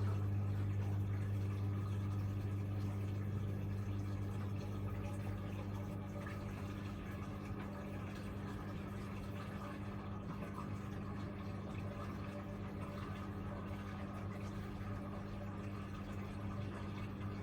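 Hoover Visiondynamic washing machine running its service-mode test: a steady electric hum with water moving inside, consistent with a valve or pump working during the test.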